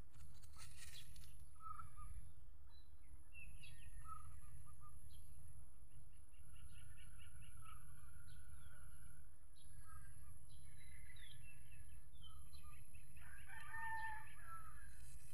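A rooster crowing once near the end, over short bird calls repeating about every two seconds. A steady high whine and a low rumble run underneath.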